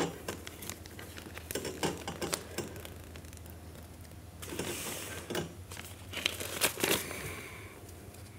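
Paper crinkling and rustling as an envelope is torn open and handled. There are runs of sharp crackles at the start and near the end, with a longer rustling stretch about halfway through.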